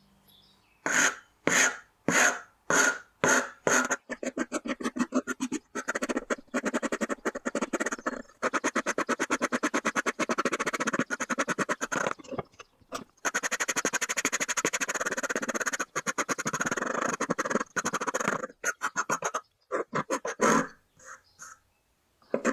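Hand tool shaping a small wooden piece with rasping strokes: a few separate strokes about half a second apart near the start, then long runs of rapid back-and-forth strokes with short pauses between them.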